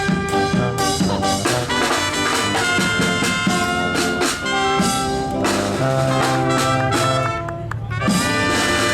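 Brass-band music with trumpets and trombones playing held notes over drums, jazz-like in style, with a brief dip just before a new chord near the end.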